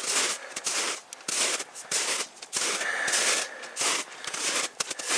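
Footsteps crunching and squelching through wet, slushy snow, one uneven step after another.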